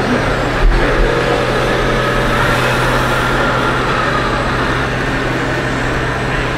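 Scale RC semi truck's electronic sound module playing a diesel truck engine running, a steady low drone through its small speaker, over the constant background noise of a busy exhibition hall.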